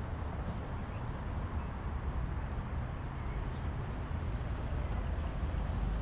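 City street traffic noise: a steady low rumble of vehicles, with a few faint high chirps now and then.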